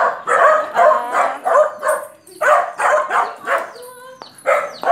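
A dog barking over and over, about three barks a second, pausing for about a second near the end.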